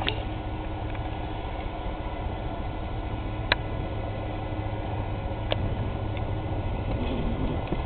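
Fishing boat's engine running steadily as the boat pushes through harbour ice, with two sharp cracks, one about three and a half seconds in and one about five and a half seconds in.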